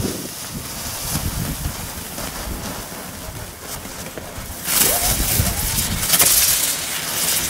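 Ground firework fountains hissing as they spray sparks, then about five seconds in a much louder, brighter hiss as the next ground firework flares up in a ball of fire and sparks.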